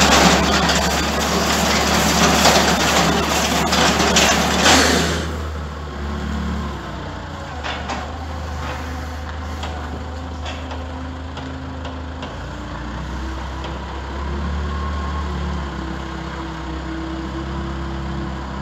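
IEP Bale Commander bale processor shredding a straw bale and blowing the straw out, a loud rushing noise that cuts off about five seconds in. After that, the engine powering it keeps running steadily, with a few light ticks and knocks.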